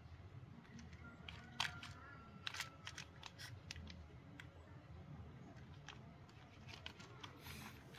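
Toy fire ladder truck being handled by hand: faint, scattered plastic clicks and rattles, the sharpest about one and a half and two and a half seconds in.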